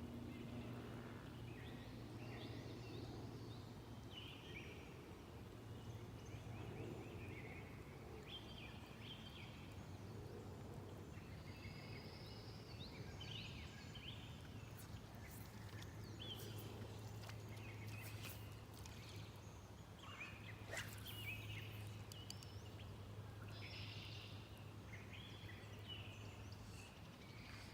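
Faint outdoor ambience of birds chirping and calling over and over, over a steady low hum, with a few sharp clicks about two-thirds of the way through.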